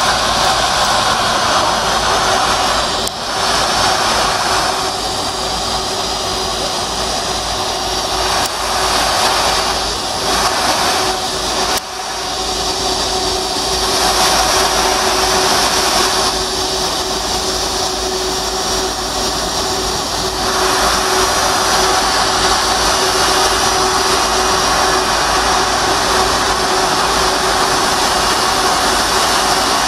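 Jet airliner's turbofan engines running at taxi idle: a steady whine over a loud rushing hiss.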